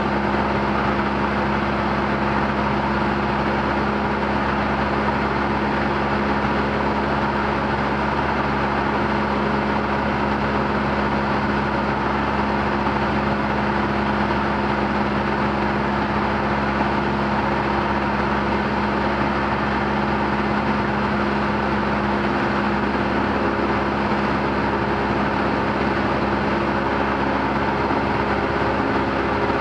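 Light single-engine propeller aircraft's engine and propeller droning steadily in flight, heard from inside the cockpit. The pitch holds constant throughout, with no change in power.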